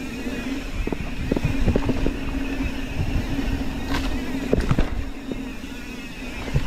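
Mountain bike descending a dirt singletrack: tyres rolling over dirt, with frequent knocks and rattles from the bike over bumps and a steady hum throughout.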